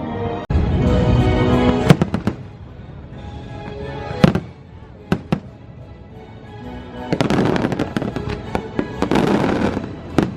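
Fireworks show: sharp firework bangs scattered over the show's musical soundtrack, the loudest about two and four seconds in, with a denser stretch of bursts near the end.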